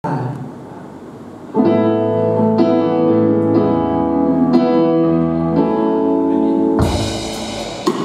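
Electric keyboard playing sustained chords that change about once a second. Near the end a noisier, harsher sound takes over.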